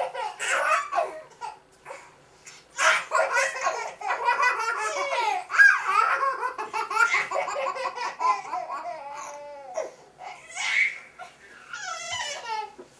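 Two toddlers laughing uncontrollably: short bursts of belly laughter at first, then a long run of overlapping laughter in the middle, tailing off into a few more bursts near the end.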